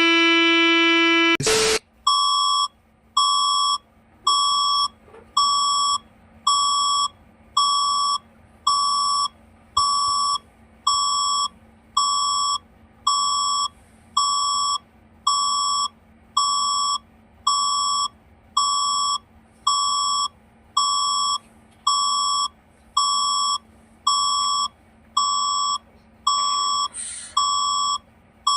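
Electronic emergency-alert signal. A steady buzzing tone cuts off after about a second and a half with a short burst of noise. Then a high electronic beep repeats about once a second, each beep a little over half a second long.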